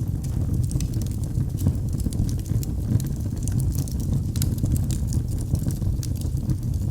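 Wood fire burning in a fireplace, crackling with many small sharp pops over a steady low rumble of the flames.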